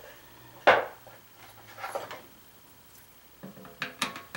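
Tool handling on the underside of a Crock-Pot slow cooker: a sharp clunk just under a second in, lighter clatter around two seconds, and a few small clicks near the end as a screwdriver is set against a screw of the plastic control-box cover.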